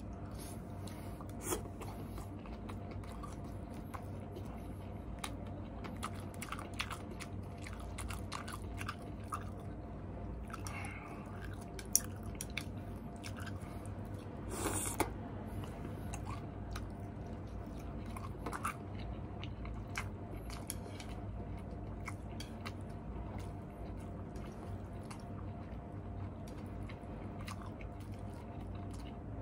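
Close-up eating sounds of a person chewing and biting mouthfuls of noodles and balls, with scattered short clicks and a sharper click about twelve seconds in. A steady low hum runs underneath.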